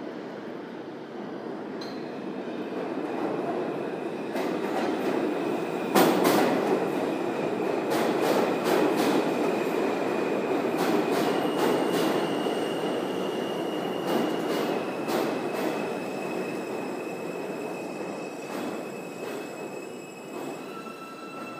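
New York City subway train pulling into a station. The wheels rumble and clack over the rail joints, under a steady high wheel squeal. It grows loud as the train enters about six seconds in, then eases off as it slows.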